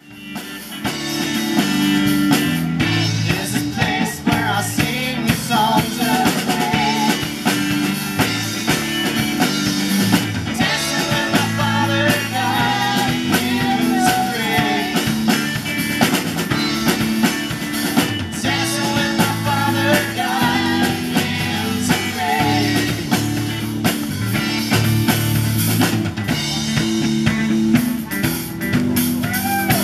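A live rock-style worship band playing through a PA: drum kit, electric guitar and women's voices singing the melody.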